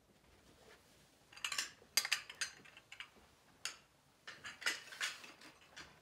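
Small plates and dishes clinking and tapping against each other as they are set down and arranged on a floor cloth: a string of light clinks starting about a second and a half in.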